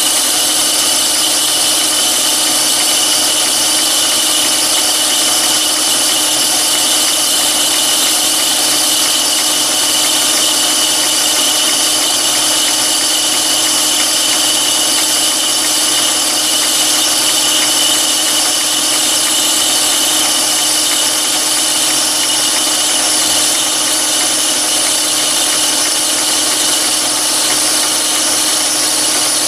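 Chinese mini lathe running steadily at about 735 rpm with a constant whine, finish-turning the rod of a scrap fire poker.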